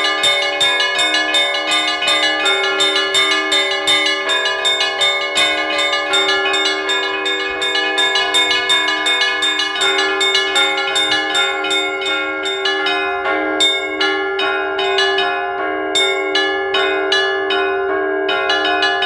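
Church bells ringing a fast peal: small bells struck in quick succession over a deeper bell sounding at a steady beat. The rapid high strikes thin out in the second half and pick up again near the end.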